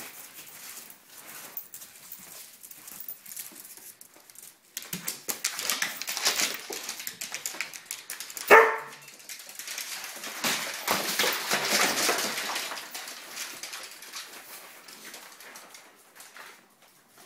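Dogs playing rough with each other and their toys on a hard floor, with scuffling and clicking throughout and one loud bark about halfway through.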